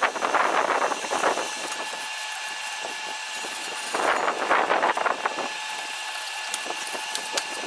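Rear axle's differential being turned by hand at the pinion yoke, its gears grinding and rattling. The noise comes in two bursts, one at the start and one about four seconds in.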